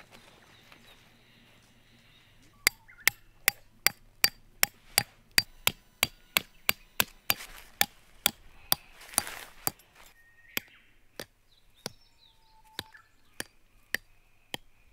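Hammer striking a tent peg to drive it into the ground: a quick run of sharp, ringing strikes, nearly three a second, then a slower series of single strikes about every half second.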